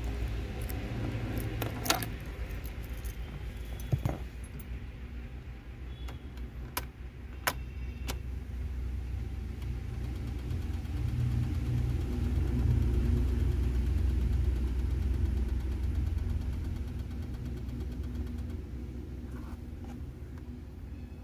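Car keys jingling, with several sharp clicks in the first eight seconds as the ignition key is worked, over a steady low rumble that grows louder for a few seconds about halfway through.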